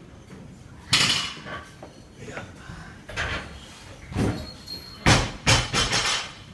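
Sharp knocks and clanks of barbell and weight-plate equipment during a set of barbell back squats. One loud knock comes about a second in, lighter ones follow, and a quick run of three or four comes about five seconds in.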